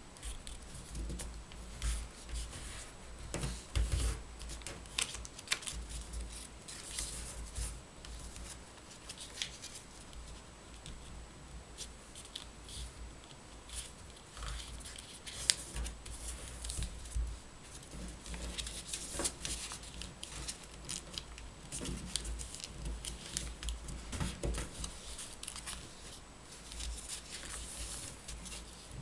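A sheet of printed origami paper being folded and creased by hand: irregular crisp rustles and crinkles, with soft low thuds.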